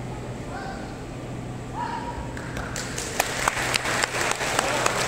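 Spectators applauding, the clapping starting about three seconds in and building, after a couple of brief voices.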